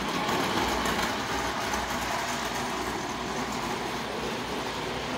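O-scale tinplate model train running on its metal track, a steady, even running noise of motor and wheels.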